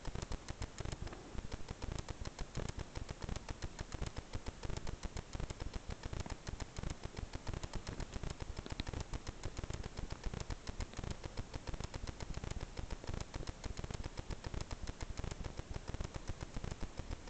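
Dense, irregular crackling: many sharp clicks a second over a faint hiss, with no music or voice.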